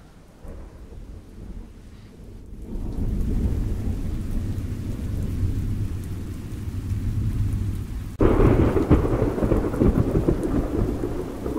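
Low rumbling, crackling noise of a microphone being handled and rubbed. It is faint at first, rises to a steady rumble a couple of seconds in, and jumps abruptly louder and harsher about eight seconds in.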